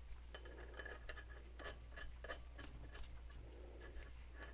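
Faint, irregular light metal clicks and scrapes of a steel fan-clutch stud being turned by hand into the threads of a water pump.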